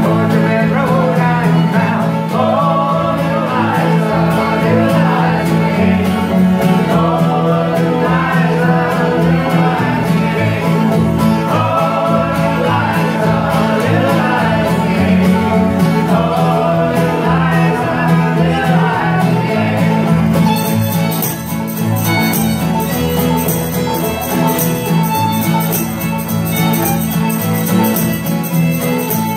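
Old-time string band playing live: acoustic guitar, banjo, mandolin, fiddle and upright bass, with several voices singing together. About two-thirds of the way through the singing stops and the band carries on instrumentally, the fiddle coming forward.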